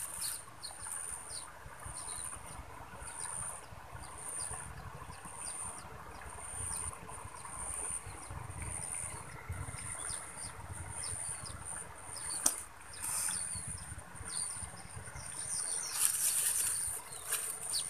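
Field insects chirping in a steady, very high-pitched pulse, a little under two pulses a second, with scattered short high chirps over it. Brief rustles twice, about two-thirds of the way through and near the end.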